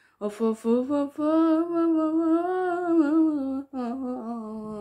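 A boy's voice singing a melody wordlessly, unaccompanied: a few short notes at first, then a long wavering held note, and another held note from about four seconds in.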